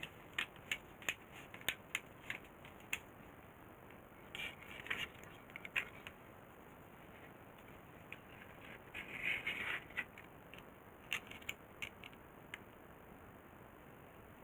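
Hand work on a small workpiece: a run of sharp irregular clicks, two short scraping rasps about a third and two-thirds of the way through, then a few more clicks.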